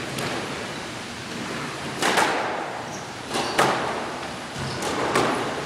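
Squash rally: sharp smacks of racket on ball and of ball on the court walls, a second or so apart, each ringing briefly in the court.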